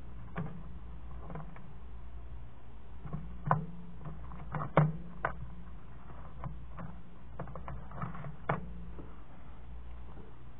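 Scattered light taps and clicks of hands handling a paper planner and craft supplies on a table, with a few sharper knocks around the middle and one more later, over a steady low hum.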